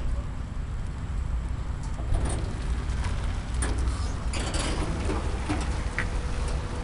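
Low rumble of a car driving slowly, with scattered light clicks and ticks over it.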